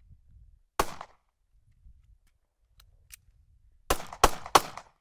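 Pistol shots: a single shot, then a quick string of three about three a second near the end.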